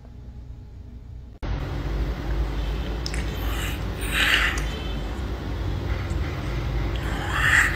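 A kitten mewing twice, in short high-pitched cries about four seconds in and again near the end, over a steady low rumbling background noise.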